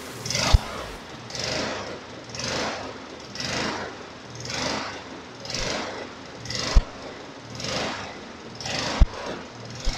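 Rhythmic rubbing strokes, about one a second, with a few short dull knocks in between.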